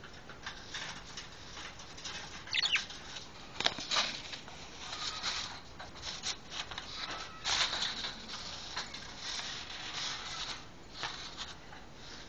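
Lovebird pecking and nibbling at a phone's camera: an irregular run of quick clicks, taps and scratches, with a brief high squeak about two and a half seconds in.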